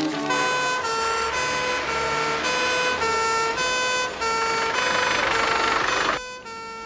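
Two-tone emergency siren of a Ford Transit ambulance passing close at speed, the two notes alternating about once a second over the rush of the van going by. The road noise cuts off sharply near the end, leaving the siren sounding fainter.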